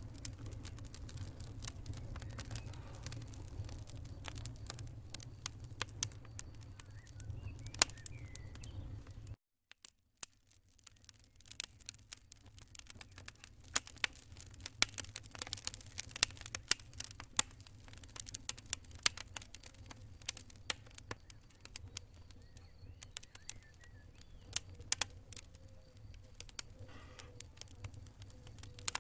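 Fire crackling in a fireplace: sharp, irregular pops and crackles over a low rumble. A little after nine seconds in the sound cuts out completely for about a second, then the crackling resumes with less rumble underneath.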